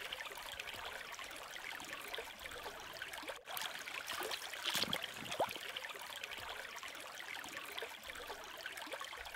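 Shallow stony brook running over stones, a steady trickling and gurgling of water, with a very short drop-out about three and a half seconds in and a few slightly louder trickles around the middle.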